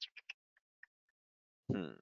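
Three quick faint clicks, then a few fainter ticks, and a man's voice starting near the end.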